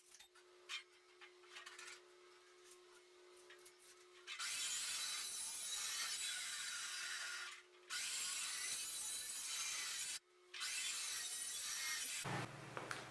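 Steel square tubing being cut with a power tool: a loud, steady cutting hiss in three stretches, broken by short gaps. Before it come a few seconds of small clicks and handling noises.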